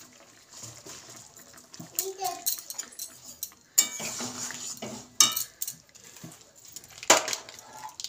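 Metal spatula stirring a watery vegetable curry in an aluminium kadai, scraping the pan and clanking against its sides a few times.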